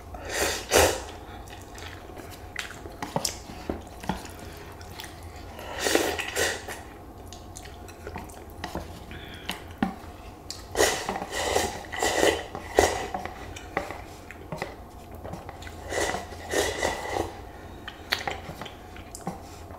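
Eating sounds: a utensil clicking and scraping against a noodle cup in short clusters, with some chewing.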